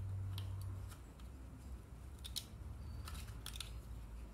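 Small hand snips cutting and trimming double-sided tape on a plastic primer-bulb plate, a scattered handful of short snips. A low hum underneath stops about a second in.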